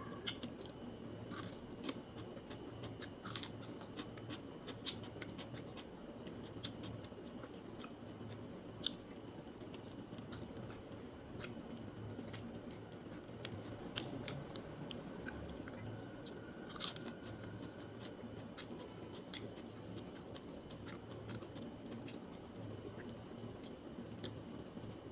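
Close-miked eating of grilled chicken and kabsa rice: moist chewing with scattered sharp mouth clicks and smacks, and hands picking and tearing at the chicken.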